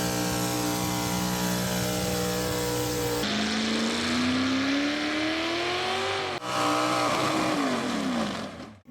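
Motorcycle engine running at a steady pitch, then revving up in a rising whine, then falling off again. It comes in short spliced pieces with abrupt cuts about three and six and a half seconds in.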